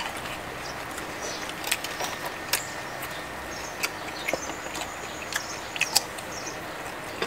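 Eating sounds: crisp fried salmon torn apart and chewed, with scattered sharp crunches and mouth clicks, and faint bird chirps behind.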